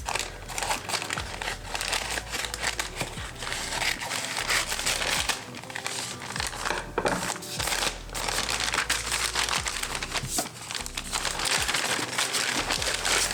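A recyclable mailer being handled and opened by hand, with continuous irregular crinkling and rustling of the packaging. Soft background music plays underneath.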